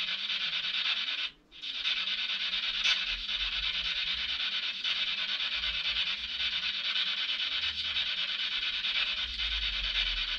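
SB7 spirit box sweeping through radio stations, giving a steady hiss of radio static. The static cuts out briefly about a second and a half in, and faint ticks recur about every second and a half.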